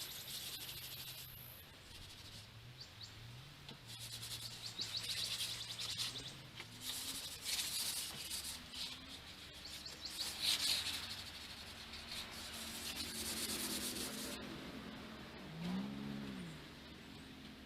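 Hand rubbing strokes over a wooden deck railing, an irregular scratchy scrubbing that is strongest a few seconds before the middle. Birds chirp faintly.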